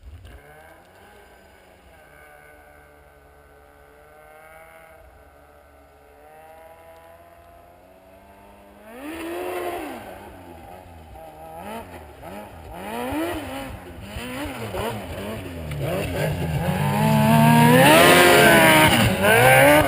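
Yamaha Apex MTX snowmobile's four-stroke four-cylinder engine idling steadily, then revved in several quick blips from about nine seconds in, and held at high revs for a few seconds near the end before dropping.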